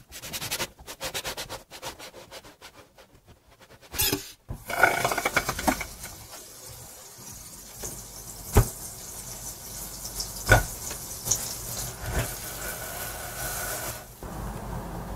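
A knife saws through a crusty wholemeal bun on a wooden chopping board, in quick rasping strokes about four or five a second. About four seconds in this gives way to butter sizzling in a hot nonstick frying pan, a steady hiss with two sharp pops, and near the end the bun halves are laid cut-side down into the pan.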